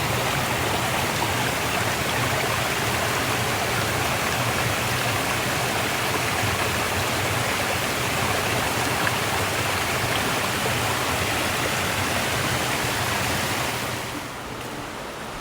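Steady rushing water of a mountain stream, an even, loud flowing noise that drops to a quieter level about a second before the end.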